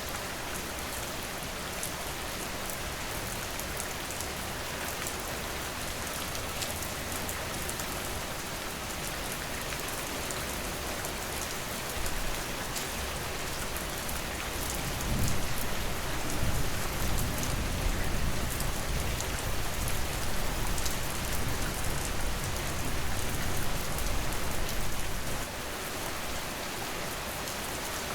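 Steady rain falling on surfaces: a dense, even hiss flecked with the ticks of single drops. About halfway through, a low rumble swells in underneath, making it louder, then cuts off abruptly a few seconds before the end.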